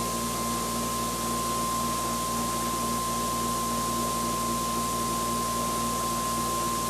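Generator test rig running steadily on load, its prime mover spinning the generator: a constant hiss with a steady high whine and a lower hum that do not change.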